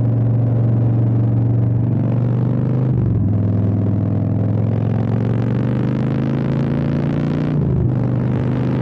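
Custom Harley-Davidson Street Bob's V-twin engine running with a steady low note. About three seconds in its note changes briefly, then climbs slowly, and it shifts again briefly near the end.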